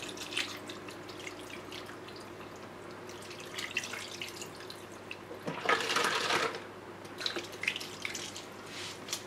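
Pineapple juice poured from a carton into a roasting pan already part-filled with liquid: a steady splashing trickle, with a louder gush lasting about a second some six seconds in.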